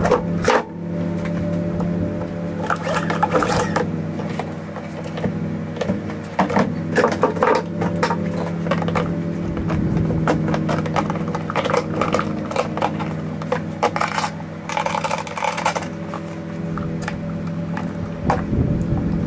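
Scattered clicks, taps and scrapes of hands fitting plastic housing parts and fuel-system components back onto a Honda EU2000i generator, over a steady background hum.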